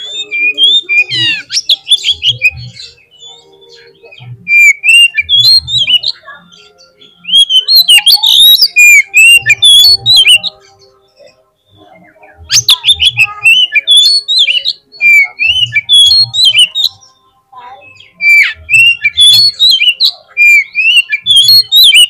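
Oriental magpie-robin singing loudly in bursts of a few seconds each, a rapid run of varied whistles and scratchy notes, with short pauses between the bursts.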